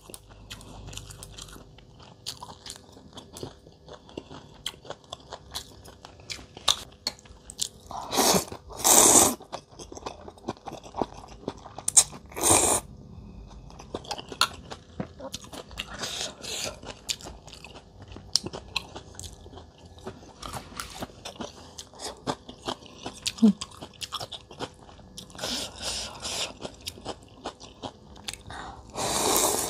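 Mouth sounds of a person eating rice-noodle soup with fresh lettuce: steady chewing and crunching, broken by several loud slurps of noodles lasting about a second each.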